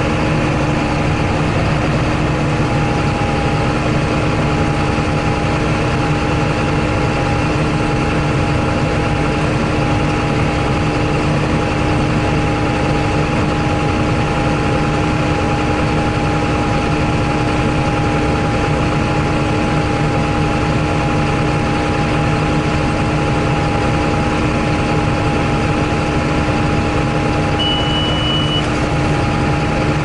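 John Deere 8100 tractor's six-cylinder diesel running steadily under load, heard from inside the cab, as it pulls a John Deere 466 round baler along a windrow. A short high-pitched beep sounds about a second long near the end.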